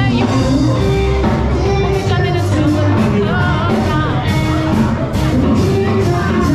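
Loud dance music playing at a party, with guests singing and shouting along.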